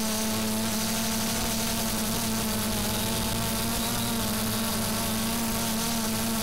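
A steady mechanical drone with a buzzing pitched tone, unchanging in pitch and level.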